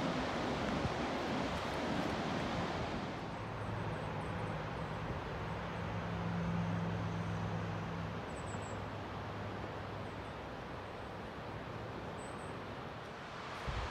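Steady rushing noise of wind on the microphone and ocean surf. A low engine hum swells and fades between about 3 and 8 seconds in, and a brief low thump comes near the end.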